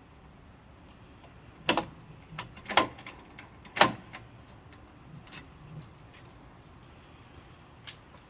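Sharp metallic clicks and clanks of door lock hardware being handled and fitted: three loud ones about two, three and four seconds in, lighter taps between them, and one more near the end.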